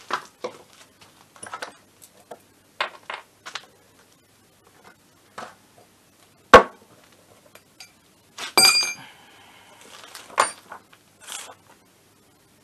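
Scattered clicks and knocks of tools and metal parts handled on a workbench, with a sharp knock about six and a half seconds in and a ringing metallic clink about two seconds later.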